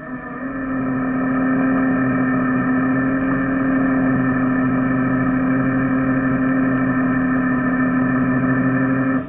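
Ford F-450 Super Duty tow truck's winch running steadily under load, reeling in cable to pull a stuck Jeep out of soft dirt. It is a loud, even mechanical hum that builds over the first second and cuts off sharply near the end.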